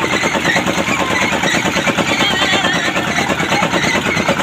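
Engine running steadily with a fast, even chugging beat.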